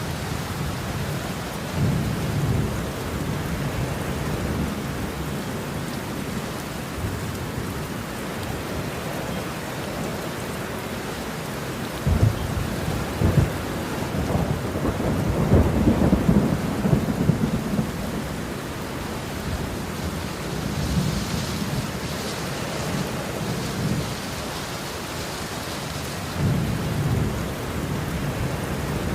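Steady rain falling with rolling thunder; a sharp crack about twelve seconds in leads into the loudest, longest rumble, and weaker rumbles come near the start and near the end.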